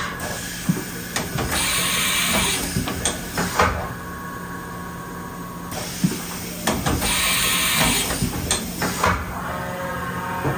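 Haas VF-3B vertical machining center changing tools: clunks and clicks from the tool changer and spindle, with two bursts of air hiss a few seconds apart, over a steady machine hum.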